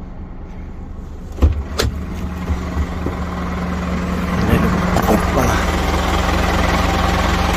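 Scania truck's diesel engine idling steadily. Two sharp clicks come about a second and a half in, then the idling grows louder as the cab door is opened to the outside.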